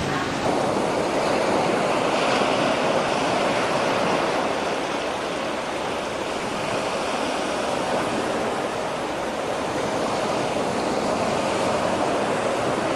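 Steady rushing of water, an even unbroken wash of sound.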